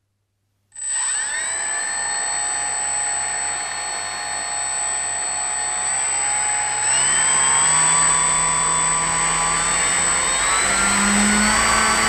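Electric motor and propeller of a radio-controlled model autogyro starting up less than a second in and running steadily, with a constant high whine. The throttle is stepped up twice, about 7 and about 10 seconds in, and the motor note rises each time, short of full throttle.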